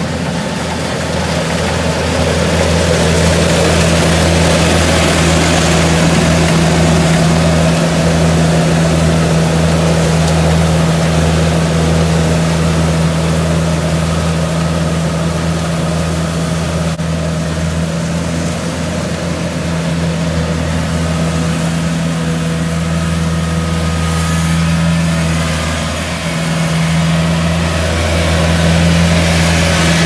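Diesel engine of a Kubota DC70 combine harvester running steadily with a deep, even hum. It grows a little louder over the first few seconds and dips briefly near the end.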